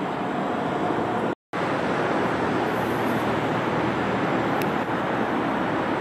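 Steady rush of a shallow river running over stones. The sound drops out completely for an instant about a second and a half in.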